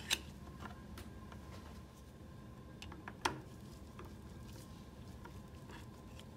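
Faint handling of a metal heatsink bracket being seated on a print head and a screw started with a screwdriver: a light click just after the start and a sharper metal tap about three seconds in, then quiet screwdriver work.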